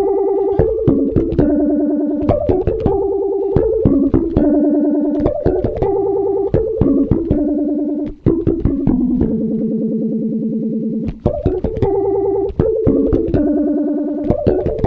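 Electric bass guitar played through an EBS DPhaser pedal: a plucked riff of repeated notes with a sweeping phaser swirl on the tone. The phrase repeats about eight seconds in.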